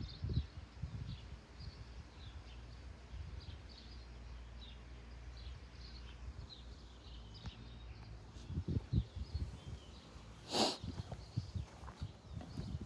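Outdoor farmyard ambience with small birds chirping faintly throughout, low rumbling and a few soft thumps, and one brief loud burst of noise about ten and a half seconds in.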